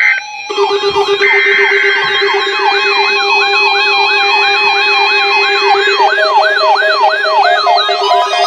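Several electronic siren and alarm tones layered at once: a wail that sweeps up over and over, about twice a second, over a fast-pulsing low tone and other steady beeps.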